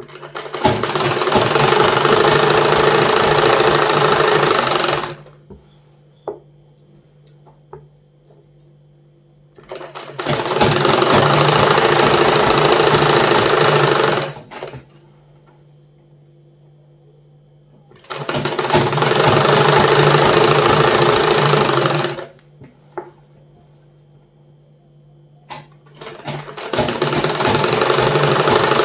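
Old black household sewing machine stitching a seam in four runs of about four to five seconds each, with short stops between runs and a few light clicks in the pauses. It is sewing the new side seam that takes the nighty in to a closer fit.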